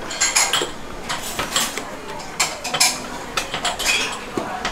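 Silicone spatula scraping thick whipped egg-yolk foam out of a steel mixing bowl, with the bowl clinking against the rim of a steel pot: an uneven run of short scrapes and knocks.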